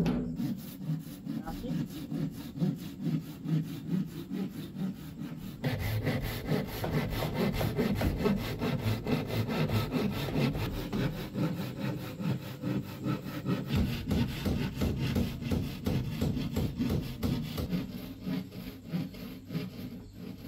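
Handsaw cutting through a sheet of plywood in steady back-and-forth strokes, getting louder and brighter about six seconds in.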